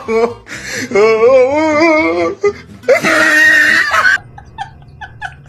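Comedic laughter on the soundtrack: a long, wavering laugh, then a loud noisy burst about three seconds in, then a quick run of short giggles about five a second.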